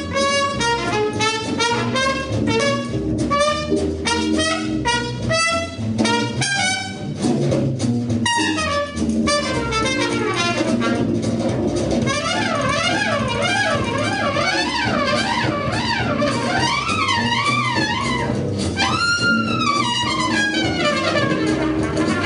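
Jazz band music led by a brass instrument playing quick runs over drums and cymbals. About halfway through, the lead line turns to a wavering, swooping melody.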